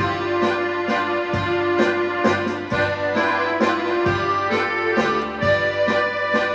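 Accordion playing a vallenato tune, with held chords and melody notes over a bass line and a steady percussion beat of about two strokes a second.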